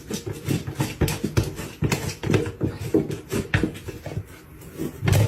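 An animal calling in a quick, irregular run of short pitched sounds, several a second.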